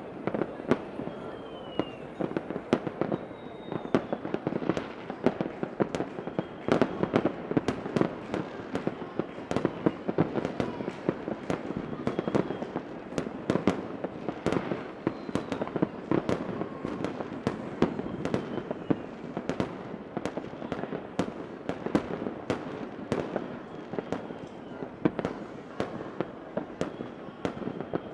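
Fireworks going off continuously: dense, rapid bangs and crackles several times a second, with a few faint falling whistles in between.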